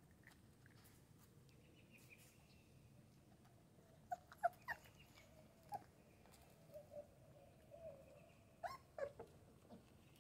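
Puppies whimpering and yipping in short, high squeaks: a cluster about four seconds in, a few single ones after, and another cluster near the end.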